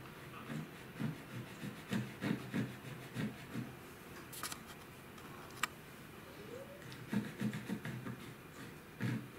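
Hands handling a USB microscope on its stand: irregular soft rubs and light knocks in two spells, with two sharp clicks in between.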